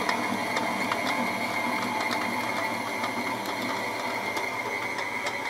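KitchenAid 5KPM5 bowl-lift stand mixer running steadily, its flat beater turning through cake batter, with a steady motor and gear whine. It is working again on its newly fitted replacement gear.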